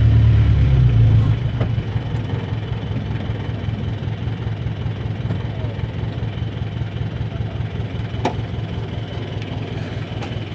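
A motor vehicle's engine heard from inside the passenger cab. It runs loud and low for about the first second, then settles to a steadier, quieter running noise, with one sharp click about eight seconds in.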